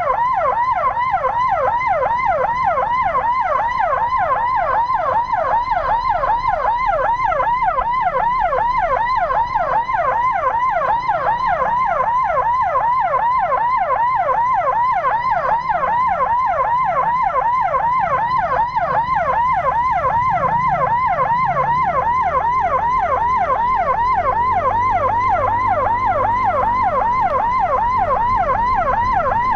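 Electronic emergency siren in a fast yelp, sweeping up and down several times a second without a break, over a low engine rumble.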